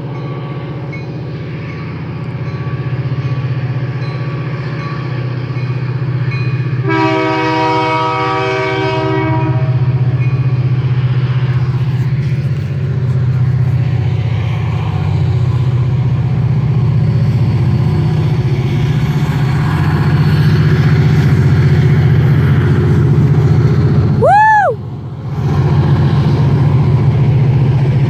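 CN freight train rumbling past, growing louder. About seven seconds in, the locomotive's multi-note horn sounds once for about two and a half seconds.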